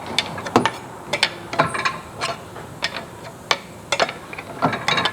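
Irregular metallic clicks and clanks of hand tools working on a car's rear suspension and differential, about fifteen sharp knocks over a few seconds. The parts are bent from a crash and need working loose instead of coming straight out.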